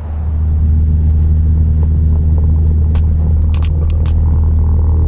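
Cessna 172's piston engine and propeller coming up to high power within the first half second, then a loud, steady, low drone.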